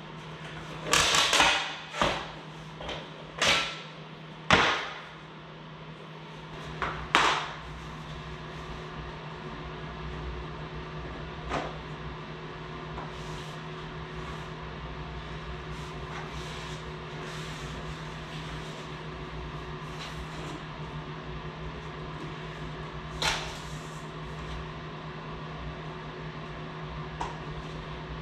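Luxury vinyl planks being cut on a plank cutter and handled: a handful of sharp clacks and knocks in the first seven seconds. After that, a steady low hum with a few light taps as planks are fitted on the floor.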